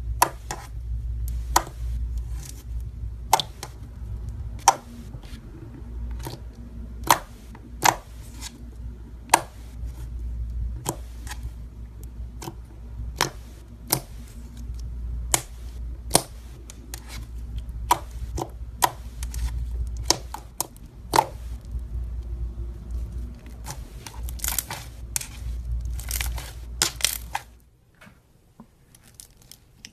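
Fingers squishing and pressing thick, glossy slime, giving a steady stream of sharp, irregular pops and clicks as pockets of air burst, over a low rumble. Near the end the sound drops to a quiet stretch with only a few faint clicks.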